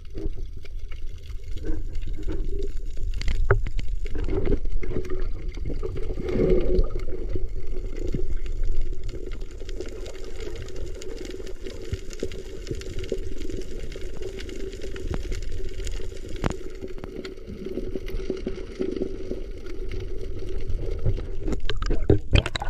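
Muffled underwater water noise: a low rumble and gurgling of water moving over a submerged action camera, with a steady low hum and scattered small clicks.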